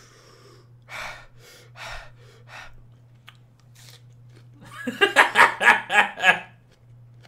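A few short, sharp breaths while a raw onion is bitten and eaten, then about five seconds in a loud burst of rhythmic laughter, about six quick pulses.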